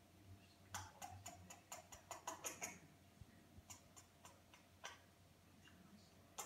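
Faint, irregular clicking from a parrot in its cage: a quick run of small clicks, then a few scattered ones.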